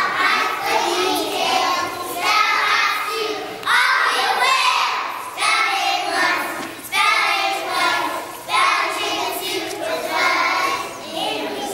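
A class of young children singing together in unison, the song moving in short phrases with brief breaks between them.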